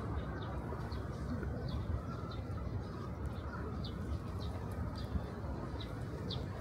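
Small birds chirping, a scatter of short, high, falling calls repeated every half second or so, over a steady low outdoor rumble.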